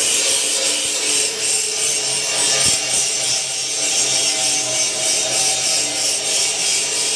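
DeWalt angle grinder grinding down a weld bead on steel tube: a steady, high abrasive grinding noise.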